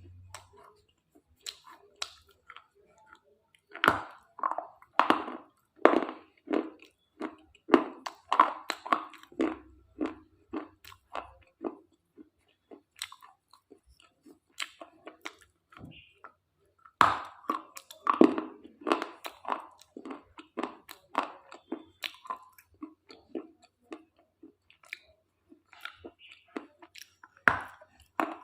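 Close-up chewing and crunching of brittle slate pieces, a quick run of sharp crunches at a time: a dense bout early on, then sparser bites, then another dense bout past the middle.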